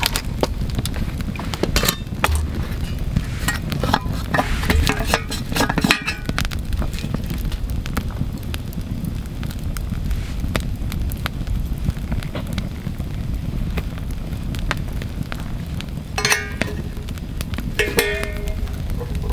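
Wood campfire crackling and popping over a steady low rumble. Metal pots and a kettle are being handled beside it, with a run of clinks a few seconds in and two short, ringing metallic clinks near the end.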